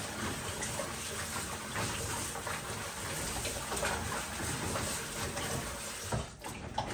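Water sloshing and splashing in a plastic basin as hands rub and turn pieces of pumpkin, rinsing the limewater off them after the soak. The splashing is steady, with a short break near the end.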